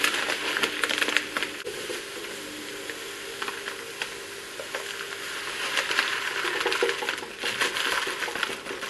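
Coarse dishwasher salt granules pouring from a plastic bag into a plastic tub: a steady granular hiss flecked with small clicks and crackles.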